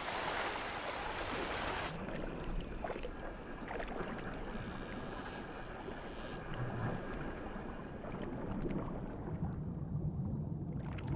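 Sea water rushing and splashing as a pod of dolphins swims at speed.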